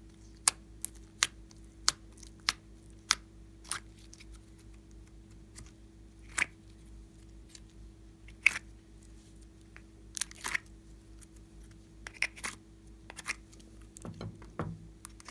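Glossy slime pressed and poked with a fingertip, giving sharp sticky pops about every half second for the first few seconds. Then scattered pops and crackles as pieces are pulled off, with softer squishes near the end as the pieces are set into a bowl of white slime.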